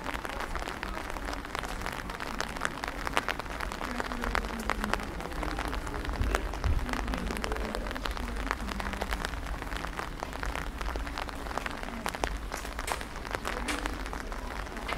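Rain falling, with many irregular raindrop ticks over a steady hiss.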